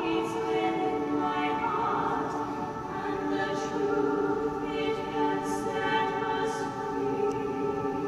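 Stage-musical cast singing together in harmony, several voices holding long notes over an accompaniment, with the hiss of sung consonants now and then.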